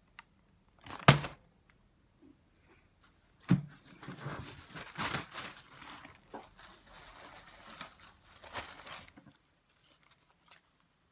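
A sharp thump about a second in and another around three and a half seconds, then about five seconds of rustling and crinkling from paper or fabric handled close to the microphone.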